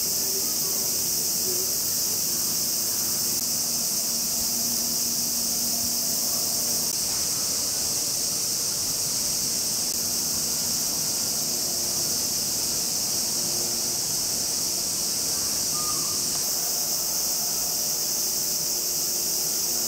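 A steady, high-pitched chorus of summer insects, unbroken throughout.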